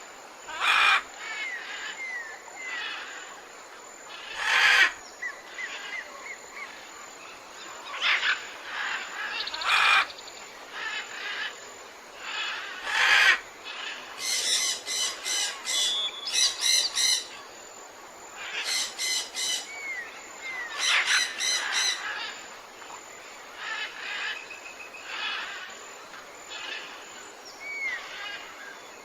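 Jungle ambience full of bird calls: loud harsh squawks, short whistled notes that slide in pitch, and, about halfway through, two rapid runs of repeated harsh calls, all over a steady background hiss.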